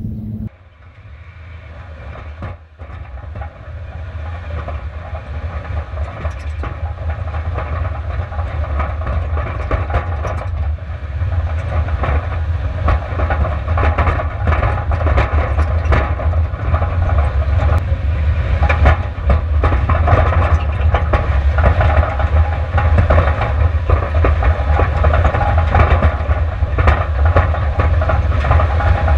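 Onboard sound of a long-travel Subaru Outback racing over a rocky dirt track: a deep rumble with constant rattling and clatter from stones and the suspension. It starts quieter just after the cut and builds steadily louder as the car picks up speed on the rough ground.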